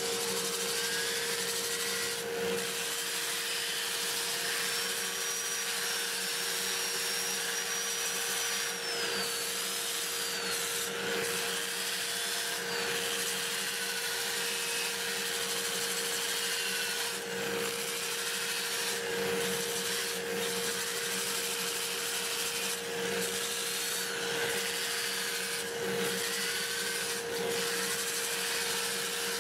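A drill-driven 2-inch sanding disc rubbing and scratching against the inside of a mimosa bowl turning on the lathe, the drill's whine gliding up and down in pitch. Underneath, a dust collector runs with a steady hum, having just come up to speed.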